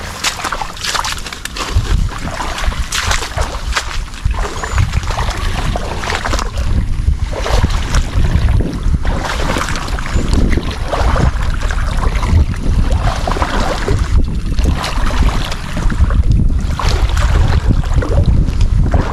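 Heavy wind noise on the microphone, over irregular swishing and sloshing of steps wading through shallow marsh water and dense water plants.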